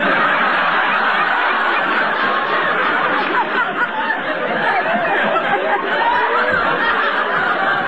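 Studio audience laughing loudly and at length at a punchline, heard on a narrow-band old radio broadcast recording.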